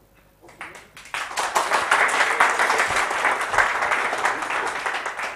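Audience applauding, a few scattered claps at first, then full clapping from about a second in that thins out near the end.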